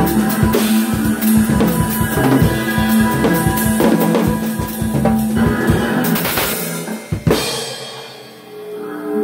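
Drum kit played fast over sustained backing music, with dense bass drum, snare and cymbal hits. It closes with a final hit about seven seconds in, then dies away, leaving the held tones of the music.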